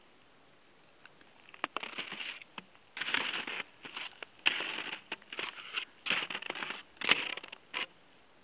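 Footsteps crunching in snow, a step roughly every two-thirds of a second, starting about two seconds in and stopping near the end.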